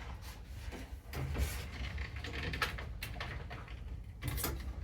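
Scattered light clicks and rustles of plastic parts and wiring being handled at a washing machine's control board, with a small cluster of clicks about four seconds in.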